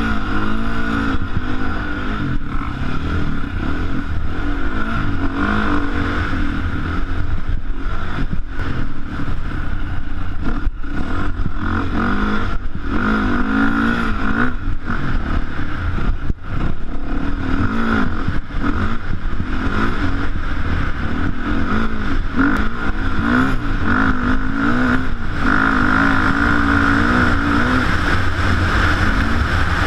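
KTM off-road motorcycle engine running under load, its revs rising and falling again and again as the bike is ridden over rough ground, with scattered knocks and rattles from the bumps.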